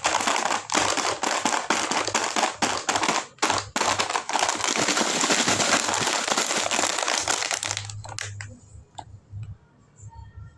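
Plastic snack packaging crinkling loudly as it is handled, in a dense run of crackles with short breaks, dying down about eight seconds in.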